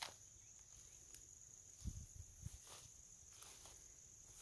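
Faint steady high-pitched insect drone, with a few soft thumps about two seconds in.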